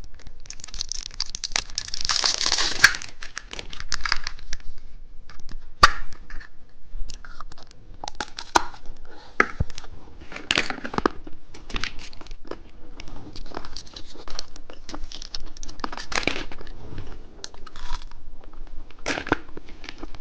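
Plastic candy wrapper being torn open and crinkled. A dense crackle comes in the first few seconds, followed by scattered rustles and clicks.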